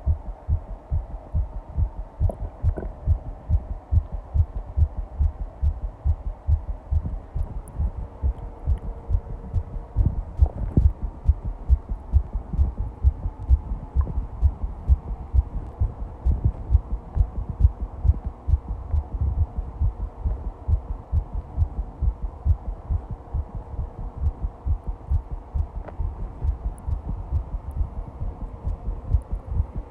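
A heart beating fast, recorded close up: a rapid, regular train of deep pulses. A faint steady hum joins behind it about a quarter of the way in.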